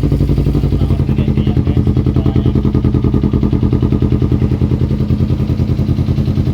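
Kawasaki Ninja 250 (2018, fuel-injected) parallel-twin engine idling steadily when warm, through an aftermarket LeoVince long carbon slip-on exhaust, with an even, regular exhaust pulse.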